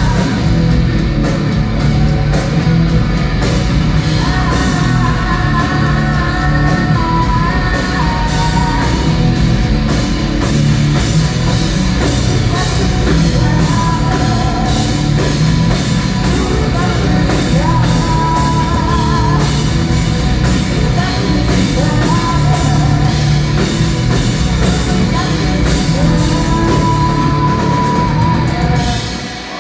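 Rock band playing live and loud: distorted electric guitars, bass and a drum kit, with a woman singing and yelling over them. The sound dips just at the very end.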